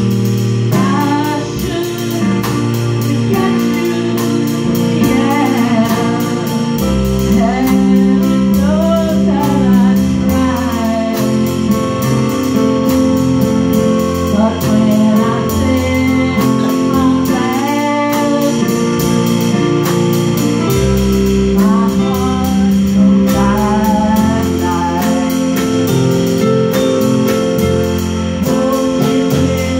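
Small live band playing a song: a woman singing over two electronic keyboards, with a drum kit keeping time on steady cymbal ticks.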